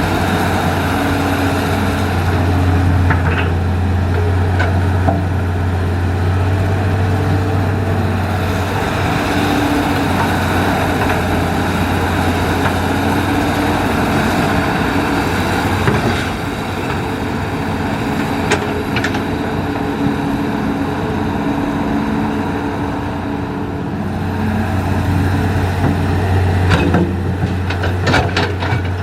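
Hitachi hydraulic excavator's diesel engine running continuously and rising and falling in level as the machine works. Near the end comes a cluster of sharp knocks.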